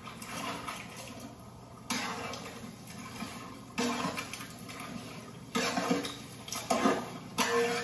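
Watery sizzling and bubbling from a large pot of mutton masala as chopped onions are added, in short stretches that change abruptly every couple of seconds.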